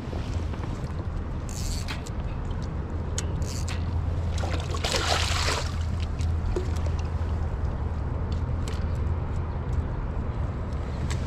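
Steady low wind rumble on a body-worn action camera's microphone, with a few small clicks and a short wet splashing sound about five seconds in.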